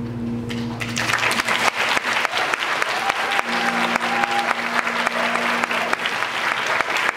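The band's last chord rings out, and about a second in audience applause breaks out and keeps going. A few held notes still sound under the clapping for a couple of seconds.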